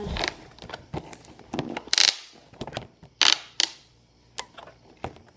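Cardboard box packaging being handled and pried at while trying to open it: scattered taps and clicks, with short scraping rasps about two seconds and three seconds in.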